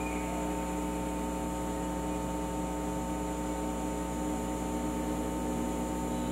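Steady electrical mains hum with a faint hiss from a wired-microphone sound system, unchanging throughout.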